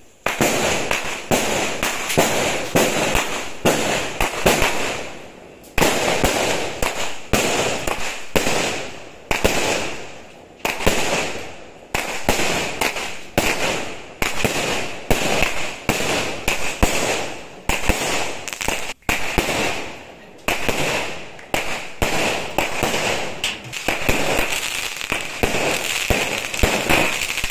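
Fireworks and firecrackers going off in quick succession: sharp bangs roughly once a second over continuous crackling.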